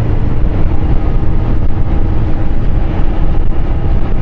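Motorcycle riding at a steady speed: engine hum held steady under loud wind rush on the bike-mounted microphone.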